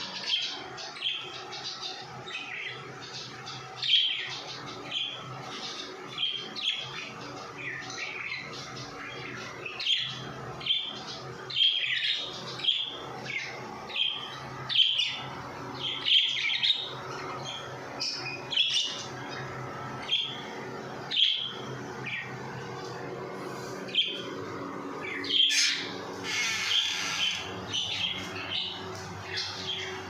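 Small pet finches chirping, short high calls about once a second, busier for a couple of seconds near the end, over a steady low hum.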